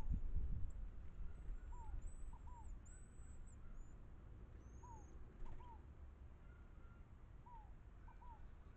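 Bird calls at a feeder: a soft three-note call, one note and then two close together, repeats about every two and a half seconds. Thin, very high squeaky calls come in the first few seconds, with one more near the end. A low rumble fades out in the first second.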